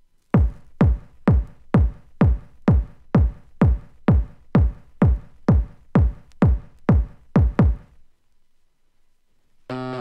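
Drum-machine kick drum playing alone in an early-1990s dance track: about seventeen hits at roughly two a second, each dropping quickly in pitch. The beat stops shortly before the end, and a synthesizer chord comes in.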